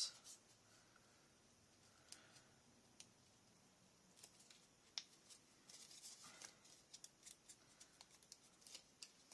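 Faint snipping of scissors cutting paper: scattered small clicks that come closer together in the second half.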